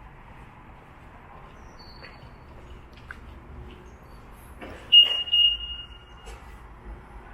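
A high electronic beep about five seconds in, a short tone followed at once by a longer one, over faint rustling and handling noise and a low rumble.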